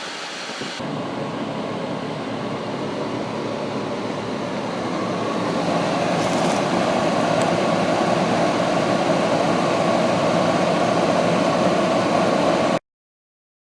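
Honda EU2000i inverter generator and Frigidaire window air conditioner running steadily under load, with the air conditioner's fan and compressor humming. The hum grows louder over the first six seconds, then cuts off abruptly near the end.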